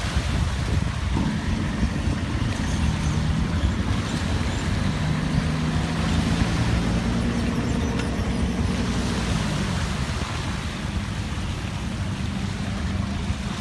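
Longtail boat engine running steadily. Its note rises a little through the middle and drops back after about nine seconds.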